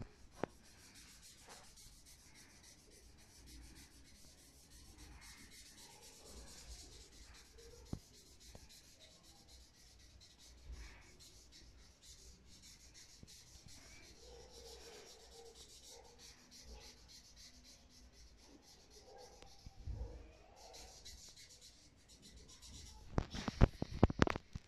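Colouring on a paper worksheet: rapid scratchy strokes running on steadily. A cluster of loud knocks comes near the end.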